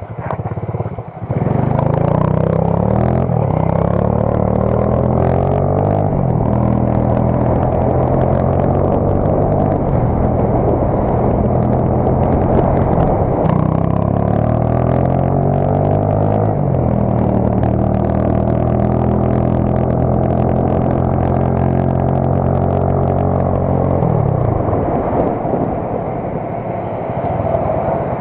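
Viper Active moped's engine pulling away and accelerating, its pitch rising through each gear and dropping back at several upshifts. It then holds a steady cruise and slows down near the end.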